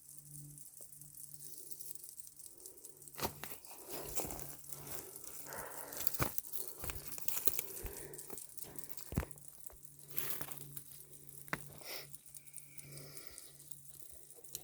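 Footsteps crunching and scraping on dry, loose ground of a steep slope, in scattered sharp crunches, over a faint steady low hum.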